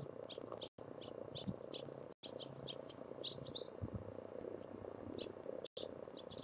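Small songbirds chirping: many short, high chirps in quick, irregular succession over a steady low hum, with the sound cutting out for an instant three times.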